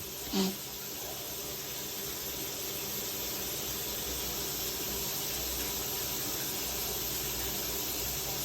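Steady hiss of steam rising off hot water for a steam inhalation, growing slowly louder. A brief throat noise about half a second in.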